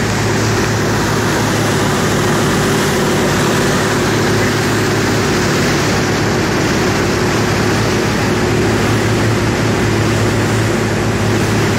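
Motorboat engine running steadily under way, a constant drone with an even rushing noise over it.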